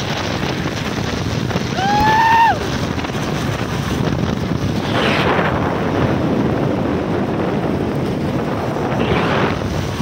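Steady rushing wind and road noise from a moving car. About two seconds in there is a short whistle-like tone that rises and then falls, and two brief louder rushes come around five and nine seconds in.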